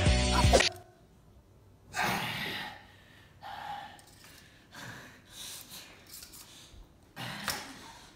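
Music cuts off about half a second in. After that come short, strained gasps and breaths from two people grappling over a knife on the floor, the loudest near the start and near the end.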